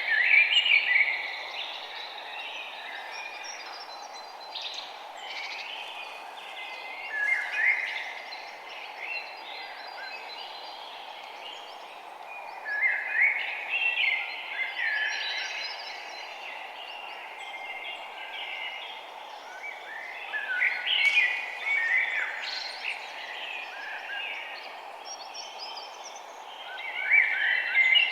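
Songbirds chirping and trilling in bursts every few seconds, the loudest near the start, around 7–8 s, 13–14 s, 21 s and near the end, over a steady background hiss.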